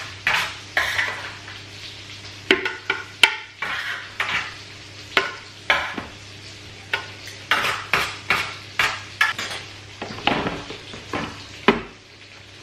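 Roasted peppers and vegetables being scraped off a metal baking tray and dropped into a plastic blender jug: irregular clicks, taps and clatter of metal and plastic, over a steady low hum.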